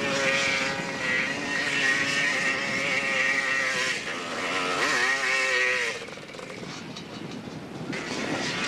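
Dirt bike engine revving hard as it climbs a steep dirt slope, its pitch rising and falling with the throttle. A quick sharp rev comes about five seconds in, then the engine note drops away and the sound is quieter from about six seconds until near the end.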